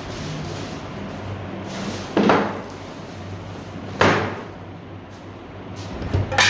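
Three heavy knocks about two seconds apart, each with a short ringing tail, from work on a domestic water pump during a bearing and water-seal change.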